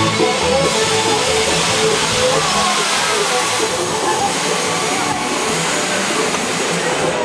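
Steady rushing noise of a spinning hub-and-arm theme-park ride in motion, heard from a rider's seat, with the ride's background music and riders' voices underneath. The music fades about a second in.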